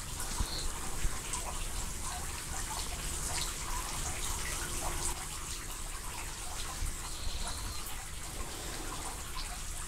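Steady trickle and splash of running water from a fountain, with scattered small drips and clicks.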